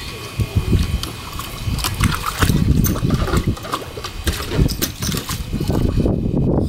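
A Boston Terrier splashing and pawing at the water in a plastic kiddie pool: irregular sloshing and splashes starting about half a second in.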